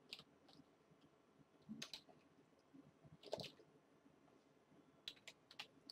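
Faint, scattered clicks of a computer mouse over near silence, with a quick run of several clicks near the end.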